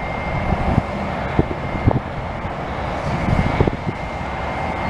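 Caterpillar D6T crawler dozer working under load, its diesel engine running steadily while it pushes heavy clay, with irregular clanks from the steel tracks.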